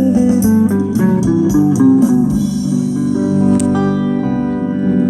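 Instrumental band music led by guitar, with no singing: a melodic guitar line over drums and cymbals, giving way to held chords about halfway through.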